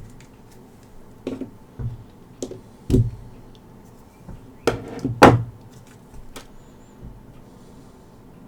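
Knocks and clatter of laptop parts being handled and set down on a work surface during reassembly: about six separate hard knocks, the loudest around three seconds in and just past five seconds in.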